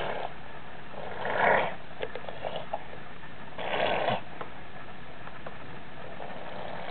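Two short, breathy huffs about two seconds apart, with a few faint clicks between them.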